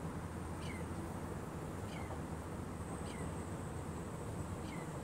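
A bird giving four short calls, each sliding quickly down in pitch, about one every second and a quarter, over a steady low rumble.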